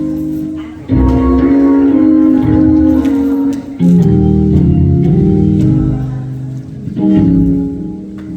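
Organ playing held chords over a bass line, moving to a new chord about a second in, again near four seconds and near seven seconds.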